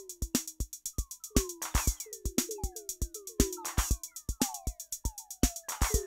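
Electronic drum loop played through Ableton Live 11's Spectral Resonator effect: each kick, snare and hat hit sets off a metallic pitched ring that slides down in pitch as it decays, in a steady rhythm.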